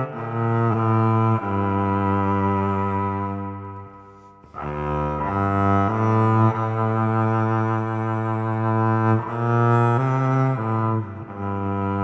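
Yamaha SVC-210 silent electric cello, bowed through its onboard 'church' reverb effect, playing a slow melody of long held notes that ring on in the heavy reverb. About four seconds in, a phrase fades away before the next note begins.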